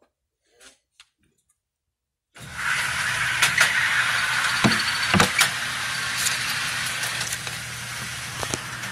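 Loud steady rushing noise with a low hum that starts abruptly a couple of seconds in. Over it come scattered sharp clicks and knocks as a silver semi-automatic pistol is handled. No shots are fired.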